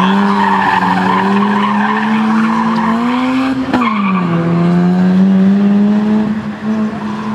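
Mazda RX-8's two-rotor rotary engine revving hard under load, with tires squealing through a turn at the start. The engine note climbs slowly, drops sharply about halfway through with a click, then holds and slowly climbs again.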